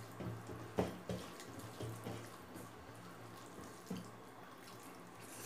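Close-miked wet chewing and lip smacks of someone eating rice by hand, with soft squishing of fingers mixing rice in a metal plate. There are irregular short clicks, the sharpest about a second in, and a low hum comes and goes underneath.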